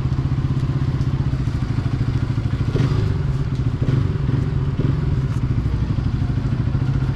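Motorcycle engine idling steadily with a low, even beat, with a few faint clicks about halfway through.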